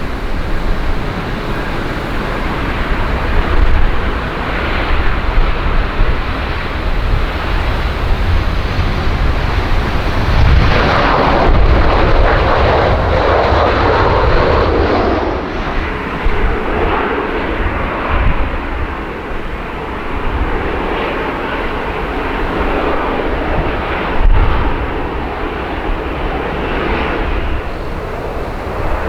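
Jet airliner passing on approach or departure, its engine noise swelling about ten seconds in and fading after fifteen, with gusty wind buffeting the microphone throughout.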